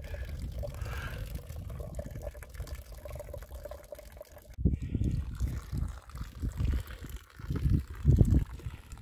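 Tea poured in a thin stream from a height, first from a small pot into a metal teapot and then into a small cup, a steady trickling splash. The sound breaks off suddenly about halfway through. Bursts of low rumble come over it, loudest near the end.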